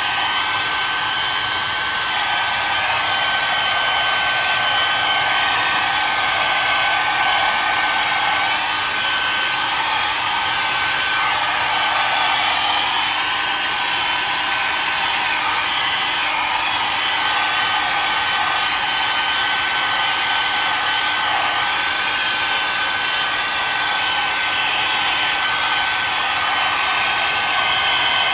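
Hand-held hair dryer running steadily, blowing air across wet pour-art resin: a continuous rush of air with a thin, high motor whine.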